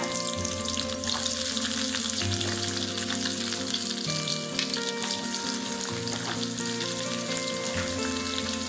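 Whole shallots frying in hot oil in a kadai: a steady sizzling hiss.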